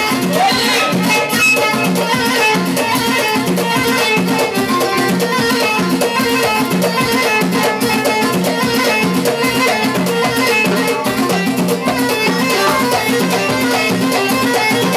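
Live Moroccan chaabi band music with a steady, driving drum beat.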